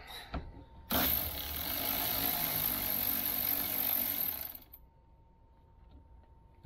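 A small handheld cordless power driver runs steadily for about three and a half seconds, starting and stopping abruptly, as it spins out a bolt on a hybrid car's high-voltage battery pack.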